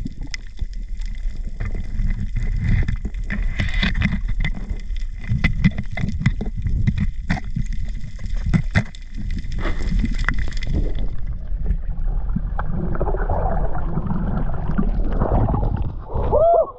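Underwater sound at a reef: a muffled low water rumble with many scattered sharp crackling clicks. After about eleven seconds the clicks stop and it changes to the wash and slosh of water at the surface.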